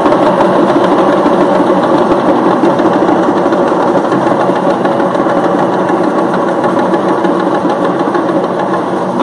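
Parai frame drums struck with sticks in a fast, continuous roll. The strokes run together into a loud, even rattle that does not let up.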